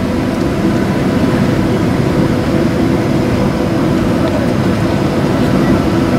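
Steady cabin noise of an airliner taxiing on the ground: its engines running at low taxi power with a low hum, and the rumble of the wheels rolling along the taxiway.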